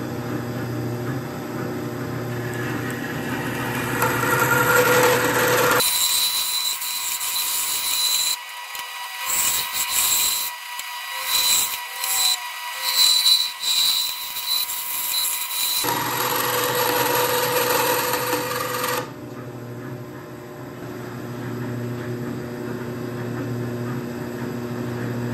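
Vertical bandsaw running, its blade cutting off the excess of a knife's screwed-on handle scale and bolster. The cutting noise swells and drops repeatedly through the middle, and the saw runs on steadily for the last few seconds.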